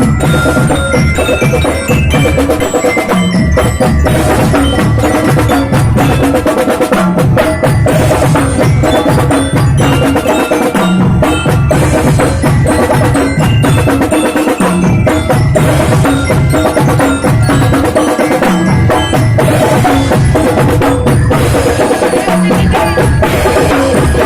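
Marching band playing: a melody on bright, bell-like mallet percussion over a steady beat of marching drums.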